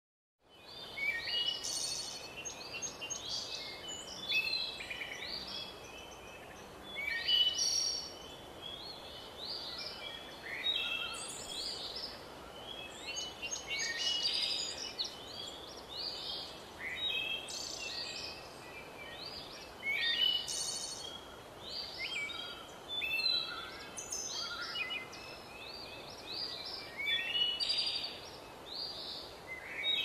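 Birds singing in the forest, with many short chirps and trilled phrases overlapping one after another over a steady background hiss.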